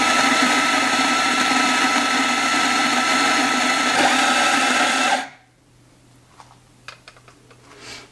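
Ceado E6P time-dose espresso grinder's motor and burrs grinding coffee beans into a portafilter, a steady loud whirr that stops abruptly about five seconds in. A few light clicks and knocks follow near the end as the portafilter is handled.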